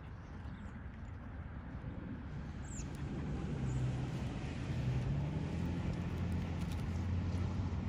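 A car engine passing on the street, a low steady hum that grows louder a few seconds in and stays up.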